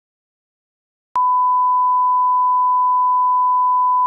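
Silence, then about a second in a steady 1 kHz line-up tone switches on with a click and holds unchanged: the reference test tone that accompanies colour bars at the head of a video tape.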